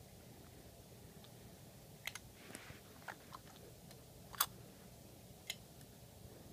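Faint clicks and light knocks from a die-cast toy front-loader garbage truck as its lift arms are worked by hand, lowering the plastic bin. The sharpest click comes a little past halfway.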